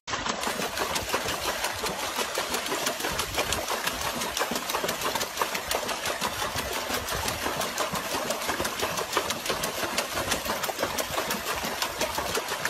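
A dog paddling its front legs in a plastic tub of water: rapid, continuous splashing and churning of water, steady throughout.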